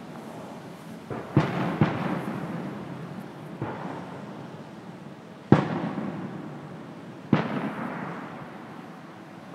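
Aerial fireworks shells bursting: about five sharp booms, each trailing off in a long rolling echo, the loudest a little past halfway.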